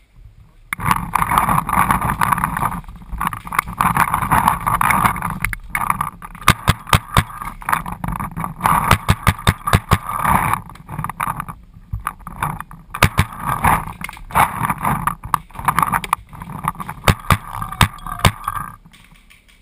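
Paintball marker firing fast strings of shots, several a second, over a steady rushing noise. Both stop about a second before the end.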